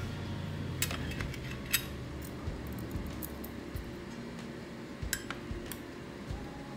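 Metal chopsticks and utensils lightly clinking against ceramic bowls and a plate: a scattering of short, sharp clicks, in a cluster between about the first and third second and again about five seconds in.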